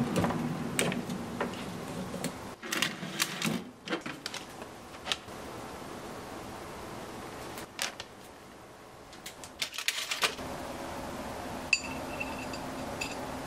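A countertop air-fryer oven's running hum dies away as it finishes. Scattered clicks, knocks and clatters follow as the oven and its wire tray are handled. Near the end come light taps and a short ringing of chopsticks on a ceramic plate.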